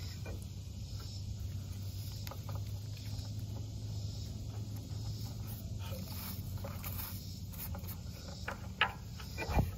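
Rubber V-belt being worked by hand onto a pulley: faint rubbing and scraping, with a few sharp clicks and knocks near the end, over a steady low hum.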